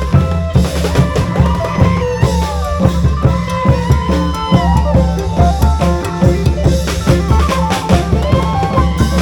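Isan folk music from a klong yao long-drum troupe: drums and percussion keep a busy, steady beat under a phin lute melody with bending, gliding notes and a deep sustained bass.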